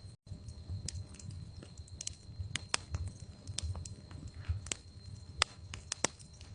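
Log fire in a fireplace crackling, with frequent irregular sharp pops over a low rumble from the flames. The sound drops out for a split second near the start.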